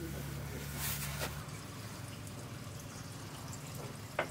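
Quiet ambience with a few light clicks as kiln furniture (refractory blocks and shelf boards) is set in place, the sharpest click just before the end.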